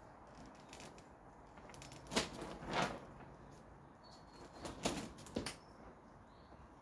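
Short, sharp swishes and slaps from a person's kung fu movements, the clothing and feet moving with the strikes and steps. They come in two pairs, each half a second apart: one about two seconds in and the other about five seconds in.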